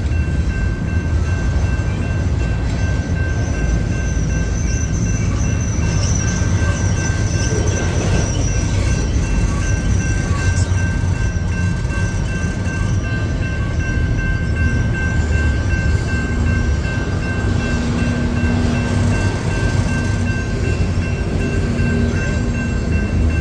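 Double-stack intermodal container train rolling past a grade crossing: a steady low rumble of wheels and cars on the rails, with steady high-pitched ringing tones over it.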